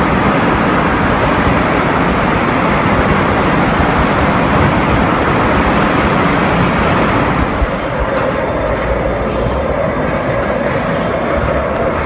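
Loud, continuous running and clatter of factory production-line machinery. About two-thirds of the way in the hiss eases and a steady hum takes over.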